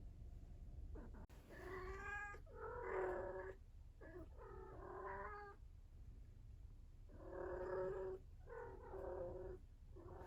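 Young female cat in heat caterwauling: a series of about six long, drawn-out yowls, some coming in close pairs. This is the oestrus call of a kitten in her first heat.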